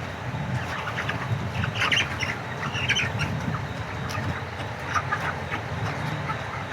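A flock of broiler chickens, with many short overlapping chirps and squawks over a steady low hum.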